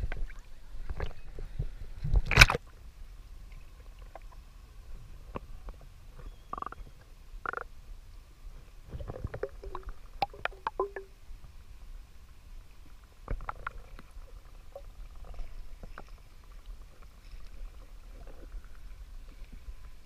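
Water splashing at the surface around the camera, with one loud splash a couple of seconds in as it goes under, then muffled underwater sound with scattered faint clicks and short blips as the swimmer moves slowly above the lake bottom.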